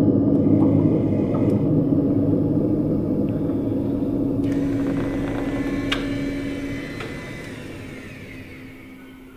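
A low rumbling drone with a steady hum, played through a rotating speaker installation of two brass horns. It fades away over the last few seconds, with a single sharp click about six seconds in.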